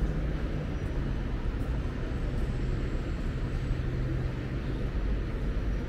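City street ambience dominated by a steady low vehicle engine hum.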